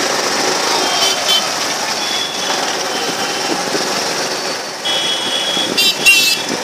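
Steady road traffic noise among motorcycles and pedestrians, with several short high horn beeps and a brief warbling horn blast about six seconds in.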